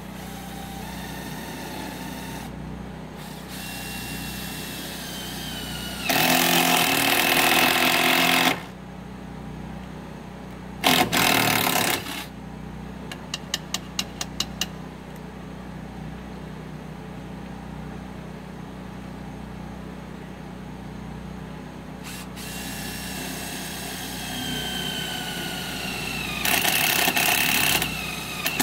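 Battery-powered impact driver driving self-tapping screws into an 18-gauge steel channel. There are three bursts of about one to two and a half seconds each, and between them a quick string of about seven short pulses.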